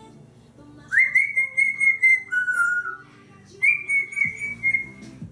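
African grey parrot whistling: a long high note held for over a second, a shorter lower note, then a second long high note from about three and a half seconds in.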